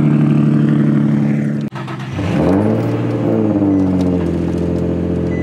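Infiniti G35 V6 engines: first a G35 sedan idling steadily; after a cut about two seconds in, another G35's engine, heard from inside the cabin, rises in revs and then settles back toward idle.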